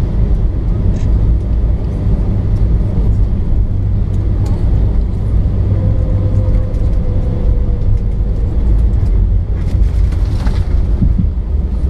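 Steady, heavy low rumble inside an Airbus A319 cabin during the landing rollout: the airliner's wheels and engines as it decelerates on the runway with spoilers raised. A brief patch of light rattling comes about ten seconds in.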